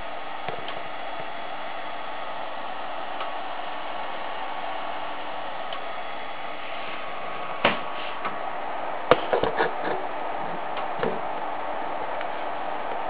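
Steady whirring hiss of a computer power-supply fan running, with faint steady tones in it. In the second half come a few sharp clicks and taps, one around the middle and a quick cluster a little later.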